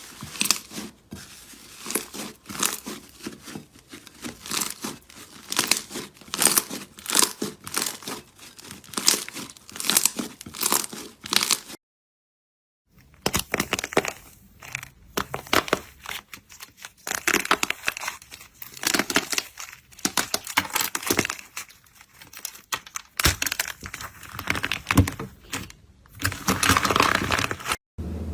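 Slime being squeezed and stretched by hand, making a rapid run of wet crackles and pops, with about a second of silence partway through.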